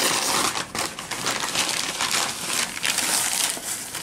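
Paper wrapping crinkling and rustling as it is handled and unfolded, a continuous irregular crackle.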